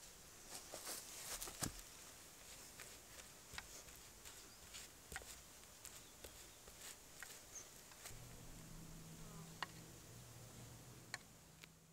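Quiet outdoor ambience with scattered faint clicks, ticks and rustles; a low steady hum joins about eight seconds in.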